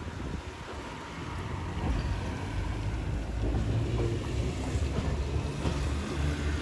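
1922 Sydney P-class tram 1497 under way, a steady low rumble of its traction motors and wheels running on the rails.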